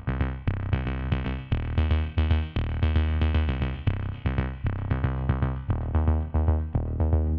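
Background music with a steady beat: short pitched notes repeated about four times a second over a bass line.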